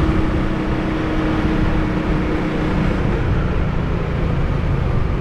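Riding noise from a Honda Winner 150 motorcycle under way: its single-cylinder engine running, mixed with steady wind and road rumble. A steady hum underneath fades out about halfway through.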